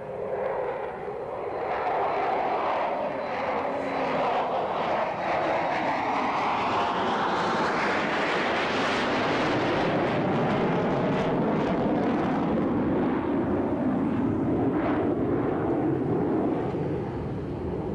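Rear-engined jet airliner climbing out after takeoff, its jet engines running loud. The noise builds over the first couple of seconds, and a whine sweeps in pitch as the jet passes overhead.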